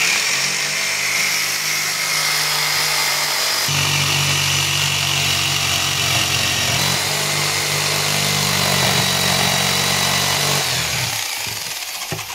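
Corded jigsaw cutting through a three-layer engineered oak parquet board, running steadily under load for about ten seconds, then the motor winding down near the end.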